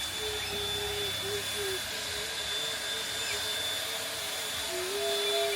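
Small power tool running with a steady motor whine over a hiss; the whine wavers and dips in pitch as the load on it changes.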